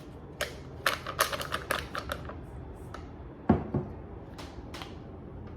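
Kitchen utensils and containers being handled: a quick run of light clicks and taps, then one louder knock about three and a half seconds in, and a few more clicks.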